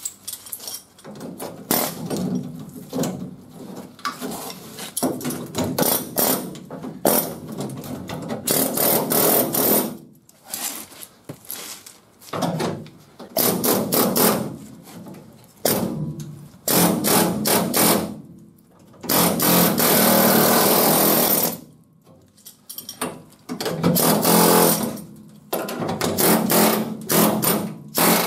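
Pneumatic air hammer with a chisel bit chattering as it cuts through rusted sheet metal of a wheel arch, in repeated bursts of one to three seconds with short pauses between.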